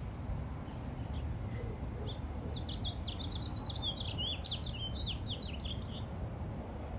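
A small songbird singing a rapid twittering phrase of sharp, quickly sweeping high notes about two and a half seconds in, lasting about three and a half seconds, after a few single chirps. A steady low rumble runs underneath.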